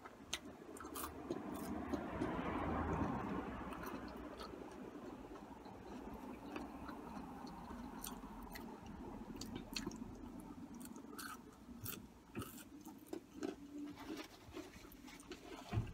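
Close-miked chewing of cheesy curly fries: soft wet mouth smacks and scattered small clicks, with a soft rushing background swell for a couple of seconds near the start.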